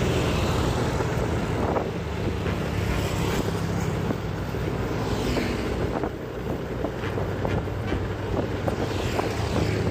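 Motorcycle engine running steadily while riding, with wind rushing over the microphone. Other motorbikes pass by, their engines briefly rising and falling about halfway through and near the end.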